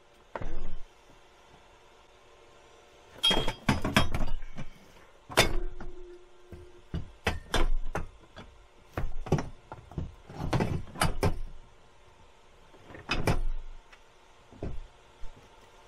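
Irregular knocks and clunks of metal and hard plastic as a Bruno Curb Side scooter lift is manoeuvred and set down onto its mounting brackets on a minivan floor, coming in several clusters. A short steady tone sounds briefly about five and a half seconds in.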